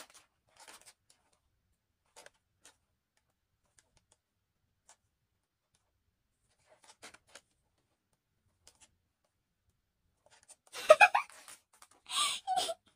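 Pages of a large printed photobook being handled and turned: scattered faint paper ticks and soft rustles, then a louder rustle of a page flipping over near the end.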